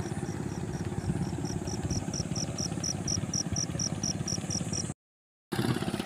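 A small engine running steadily with a fast low chugging, while an insect chirps in high pulses about four times a second. The sound cuts out completely for about half a second around five seconds in.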